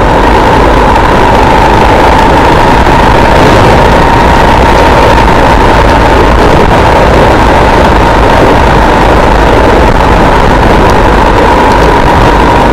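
Armstrong MT500 military motorcycle's single-cylinder four-stroke Rotax engine running steadily under way, loud and even throughout, with a steady high tone running through it.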